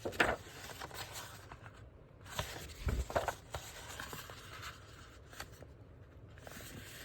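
Sheets of paper and cardstock being handled and stacked on a desk: scattered rustling and sliding, with a few brief sharp taps.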